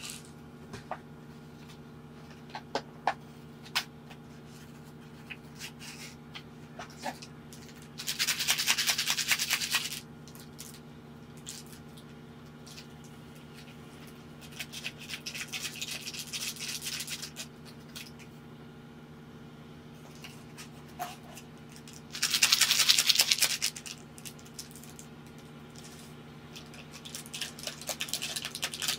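Instant cup-noodle lids peeled back and foil seasoning sachets torn open and shaken into the cups: four crinkly rustling bursts of a second or two, the loudest about a third of the way in and again past two thirds, with small crinkles and taps between. A steady low hum runs underneath.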